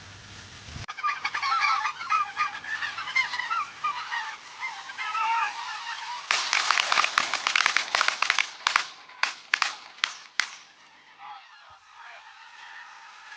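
A flock of specklebelly (greater white-fronted) geese calling in high, yelping notes, followed from about six seconds in by a rapid volley of roughly a dozen sharp shotgun blasts over about four seconds.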